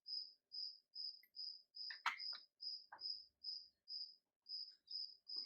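A cricket chirping steadily, a little over two short high chirps a second. A few sharp clicks sound about two and three seconds in.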